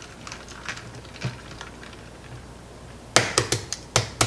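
Faint clicking as hard-boiled eggs are handled in a bowl of ice water. About three seconds in comes a quick run of about six sharp taps.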